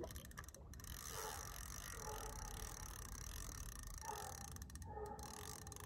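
Faint clicking and whirring of a spinning reel's gears and drag as line is worked against a large hooked catfish that is still running and pulling.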